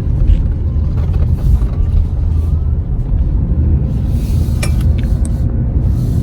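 Steady low road and engine rumble of a car heard from inside the cabin while driving, with a few short clicks about four and a half seconds in.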